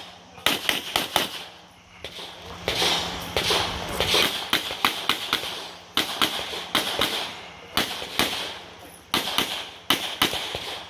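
Rapid pistol shots from a 9mm Canik METE SFT Pro competition pistol, fired in quick pairs and short strings with brief pauses between them as the shooter moves through a stage.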